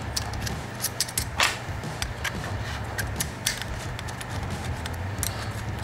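Light metallic clicks and taps of rocker arms and small hand tools being fitted onto a small engine's cylinder head, irregular, with one sharper clink and brief rattle about a second and a half in.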